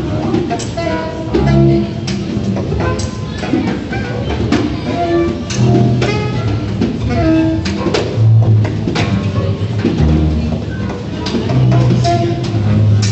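Free-improvised jazz from a trio of double bass, saxophone and a small drum: scattered drum strikes over held bass notes and short saxophone phrases.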